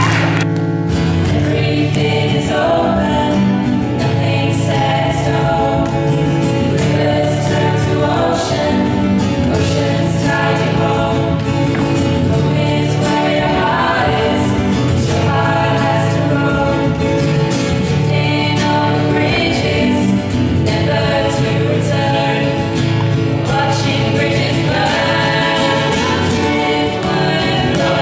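A small group of young voices singing together to a strummed acoustic guitar.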